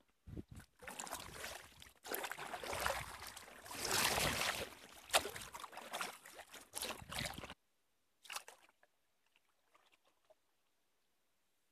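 Water splashing and sloshing around a kayak as it is paddled, in an uneven rush for about seven seconds that cuts off sharply, followed by one short splash a moment later.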